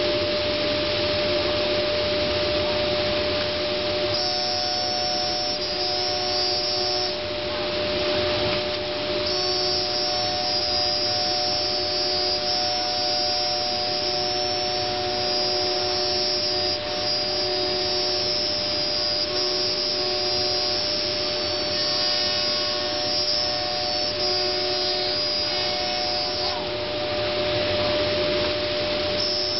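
Multicam 3000 Series CNC router running with its 7.5 HP spindle and dust collector: a steady rushing air noise with a steady whine, and a higher whine that starts and stops every few seconds.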